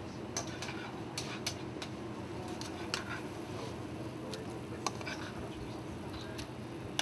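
A spatula scraping and tapping in a frying pan as halibut cubes in cream sauce are served out: scattered small clicks and scrapes over a steady low kitchen hum.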